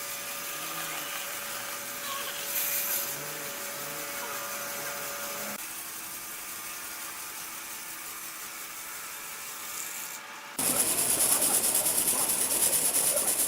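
Machinery humming steadily, then about three-quarters of the way in a sawmill saw starts cutting through wood, much louder, with a fast, even rasp.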